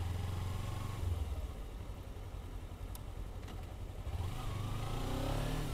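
Motorcycle engine running at low revs in slow traffic, then revving up with a rising pitch as it accelerates about four seconds in.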